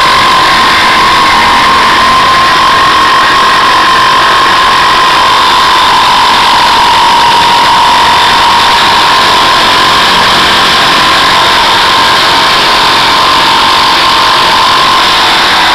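Bosch GST 10,8 V-LI 10.8-volt cordless jigsaw sawing through white-laminated chipboard: the motor runs at steady speed with a constant whine over the rasp of the reciprocating blade cutting the board.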